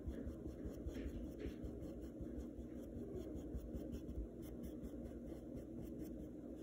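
Paintbrush stroking up and down on a stretched canvas: faint, repeated scratchy brushing as paint is layered on.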